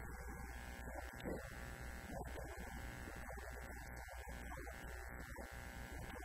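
Steady electrical mains hum with a buzz running under a man's talking.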